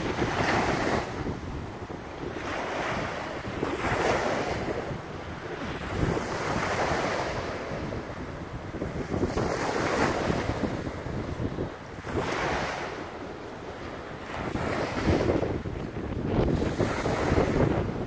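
Small river waves breaking and washing up on a sandy beach, a surge of surf every two to three seconds, with wind buffeting the microphone.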